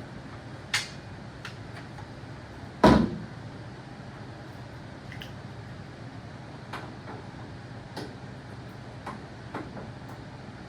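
Scattered clicks and knocks of hand tools and loose sheet-metal parts being handled while tractor side panels come off, with one loud clank about three seconds in.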